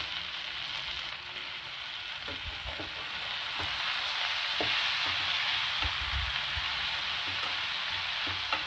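Sliced ivy gourd sizzling as it is sautéed in oil in a kadai and stirred with a spatula, with a few short knocks of the spatula against the pan.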